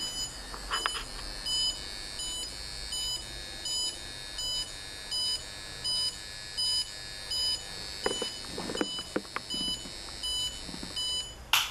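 An RF meter's audible alarm beeping in short, evenly spaced two-tone beeps, about three every two seconds. The meter is registering the constant radio emission from a DECT cordless phone base station. A few light knocks come near the end, and a sharp noise just before it stops.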